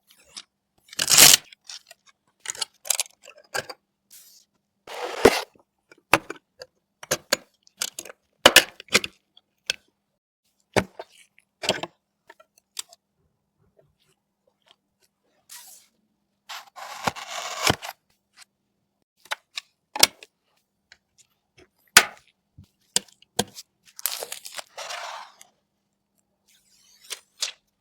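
PC parts and their packaging being handled: scattered sharp clicks and cracks of plastic and cardboard, with a few short tearing rustles, the longest about 17 seconds in and again near 24 seconds.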